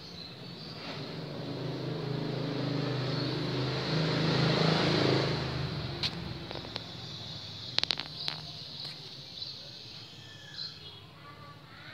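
A motor vehicle passing by, its sound swelling to a peak about four to five seconds in and then fading away. A few sharp clicks come close together near the eight-second mark.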